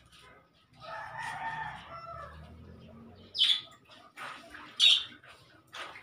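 A rooster crows about a second in, then two short, loud, high-pitched bird calls about a second and a half apart.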